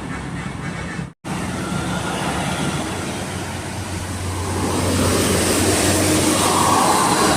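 Buses and road traffic passing: engines running with tyre and road noise, growing louder in the second half as a vehicle comes close. A brief total dropout about a second in.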